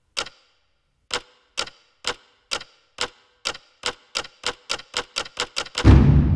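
Sharp clock-like ticks in a film score, each with a faint pitched ring, speeding up steadily from about two a second to about five a second, then cut off by a loud deep boom that rings out near the end.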